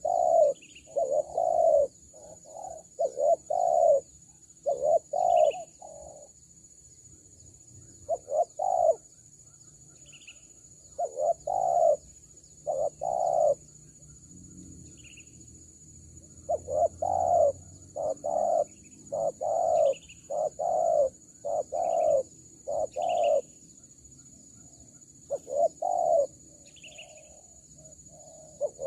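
Spotted doves cooing: repeated phrases of two to four low, husky coos, separated by pauses of a few seconds. A faint high chirp comes now and then between phrases, over a steady high-pitched hum.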